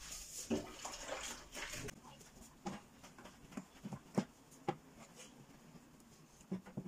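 Gloved hands handling and wiping an air fryer with a cloth: a soft rustle for the first couple of seconds, then scattered light knocks and clicks.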